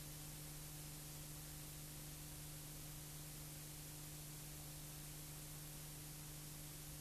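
Steady hiss with a low electrical hum: the noise floor of an otherwise silent film transfer, with no other sound.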